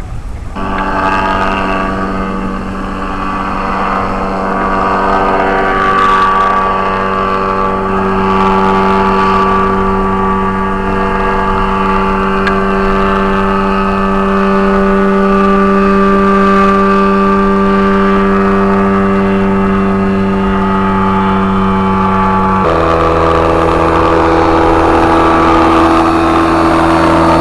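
Powered parachute's Rotax 447 two-stroke twin-cylinder engine running at a steady throttle. The note comes in abruptly just after the start and switches suddenly to a lower steady pitch about 23 seconds in.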